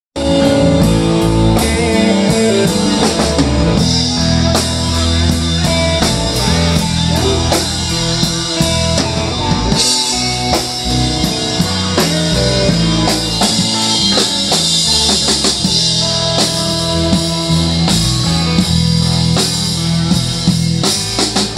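Live blues jam from a band with electric guitars and a drum kit, the drums keeping a steady beat under held guitar notes.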